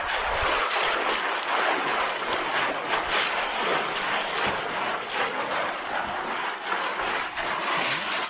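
Continuous water splashing and sloshing as a mesh net bag of shellfish is dunked and shaken in shallow water to rinse the catch; it cuts off abruptly at the end.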